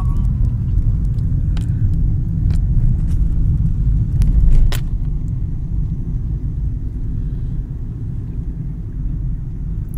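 Steady low rumble of a car driving, heard from inside the cabin, with a few short sharp clicks, the loudest about four and a half seconds in.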